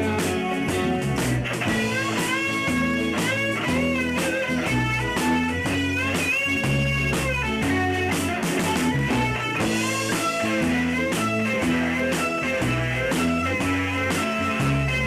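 Rock band playing an instrumental passage: an electric lead guitar holds long notes that bend up in pitch, over a bass line and a steady drum beat.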